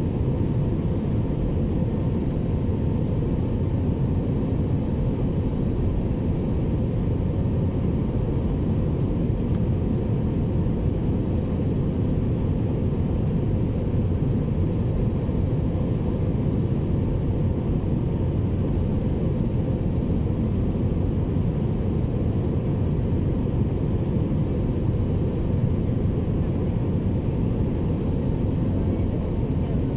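Steady drone of an airliner's jet engines and rushing air heard inside the passenger cabin, a deep, even rumble with a faint thin tone above it, as the plane descends on final approach.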